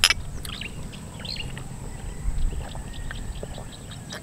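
Two ridged glass drinking tumblers clinking together once in a toast, a short bright ring. Faint bird chirps follow over a low background rumble.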